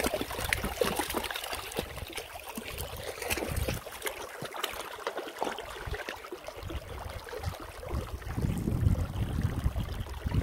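Shallow river water running and splashing over rocks close by, with a low rumble about eight seconds in.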